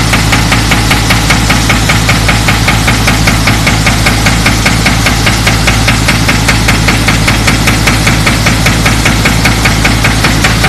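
Hydraulic breaker hammer on a CAT 307 excavator pounding concrete, a rapid, even stream of blows. The excavator's diesel engine runs underneath as a steady low drone.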